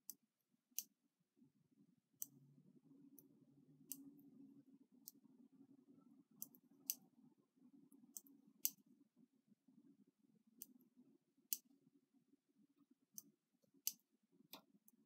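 About a dozen faint, sharp, irregularly spaced clicks of a latch tool working stitches against the metal needles of a knitting machine while latching a dropped column back up, over a faint low hum.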